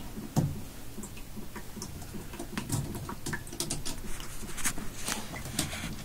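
Irregular light clicks and taps of handling, tools and the camera being moved about, with a louder knock about half a second in.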